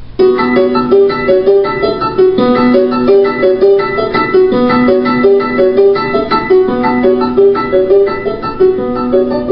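Piano music playing a repeating figure of held notes, starting suddenly right at the beginning.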